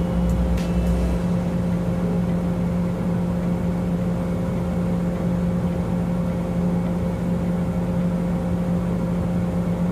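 Steady hum of an idling engine, heard from inside the vehicle's cab, with no change in pitch.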